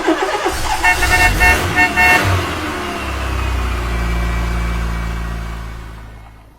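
Vehicle horn honking in several short toots over a running engine, then the engine's low, steady drone fading away near the end.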